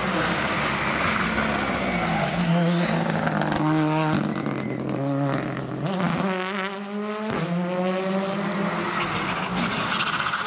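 Rally car engines at racing speed: the revs drop as a car brakes and comes off the throttle, with a crackle of sharp pops around the middle, then the engine climbs hard through the revs with a gear change partway up, and another car's engine approaches near the end.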